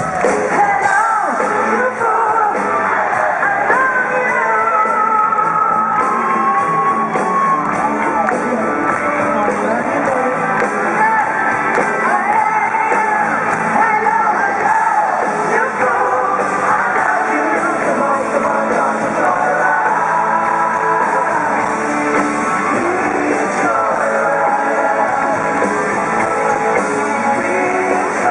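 Female lead vocalist singing with a rock band playing live in an arena, recorded from within the audience.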